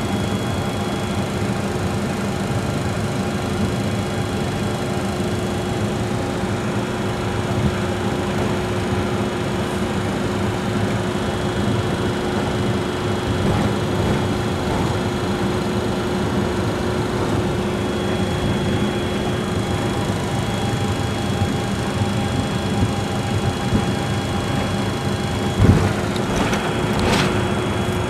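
Steady cockpit noise of a Challenger business jet taxiing: engines at low thrust with the cabin fans, an even rushing noise with a few constant hums and a faint high whine. A few short knocks come near the end.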